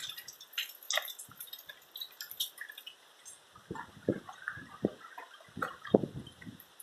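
Rain dripping and splashing: irregular single drops and spatters over a faint hiss, with a run of heavier splashes in the second half.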